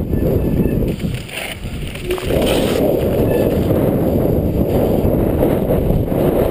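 Wind buffeting the microphone of a mountain bike rider's action camera during a fast descent, with the bike's tyres rumbling over wooden boardwalk slats. The noise eases for about a second just after the start, then comes back at full strength.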